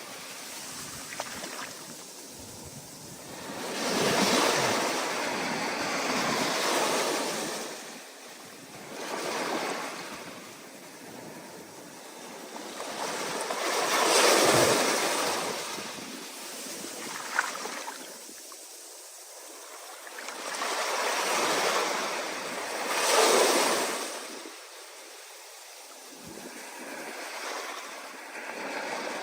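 Ocean waves breaking on the shore, the surf rushing and swelling into a loud surge every few seconds before falling back.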